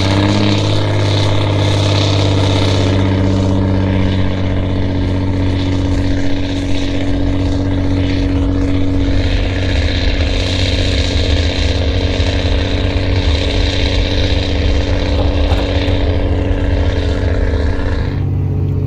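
Pickup truck engine working hard under load as it tows a trailer carrying a skid steer mulcher of about 20,000 lb in total, a steady drone that settles to a lower note near the end.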